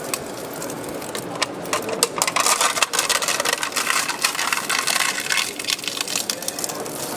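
Hand-cranked plastic shredder, its meshing cutter wheels turned by a handle, chewing up plastic cups: a dense, irregular run of cracking and crunching plastic.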